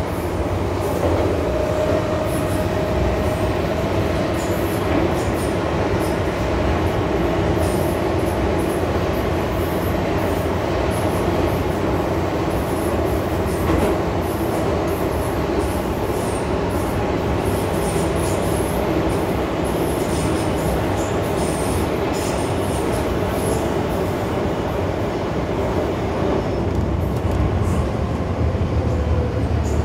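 MTR M-Train electric multiple unit heard from inside the car, running in the tunnel with a steady rumble of wheels and running gear and a faint held tone. Near the end it is coming into a station.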